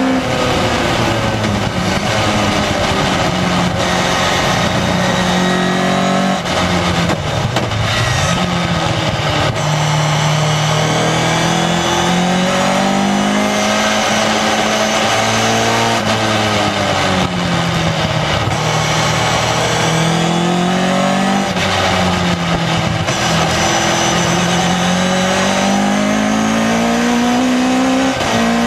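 2-litre Ford Duratec four-cylinder engine of an MK Seven-style sports car driven hard on track, heard from the open cockpit. The revs climb and fall over and over as it pulls, brakes and turns through corners, with several sudden drops in pitch at quick shifts of its Quaife sequential gearbox.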